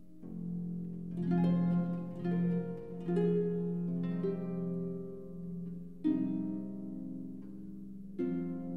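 Concert pedal harp playing a slow solo passage. Notes and chords are plucked and left to ring, with a cluster of new notes in the first few seconds and single fresh chords at about six seconds and near the end.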